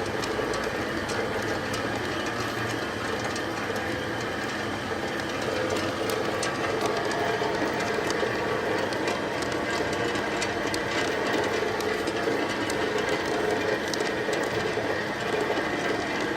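Horizontal pellet mill running steadily: a continuous mechanical drone with scattered sharp clicks and rattles.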